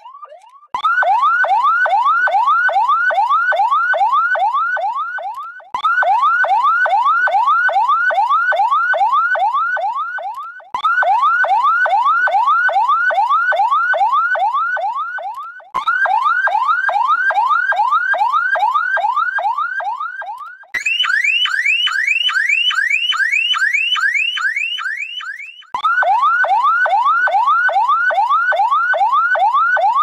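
Ambulance siren sound effects in the fast yelp pattern: rapid rising sweeps, about three a second. They are played as a run of clips of about five seconds each, with brief breaks between. One clip about two-thirds of the way through is pitched higher than the rest.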